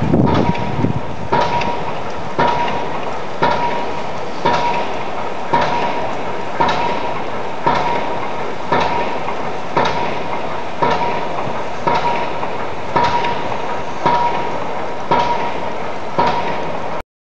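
Repeated mechanical strikes, about one a second, each with a short ringing tone, over a steady noisy din; a brief low rumble at the start, and the sound cuts off abruptly near the end.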